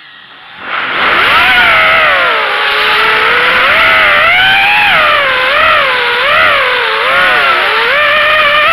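Brushless motors of a 250-size FPV racing quadcopter (KingKong 2205 2300 kV) whining, the pitch swooping up and down with constant throttle changes. Nearly silent at the start with the throttle cut, then the motors spool up about a second in.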